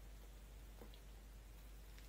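Near silence: room tone with a faint steady low hum and one faint click just before a second in.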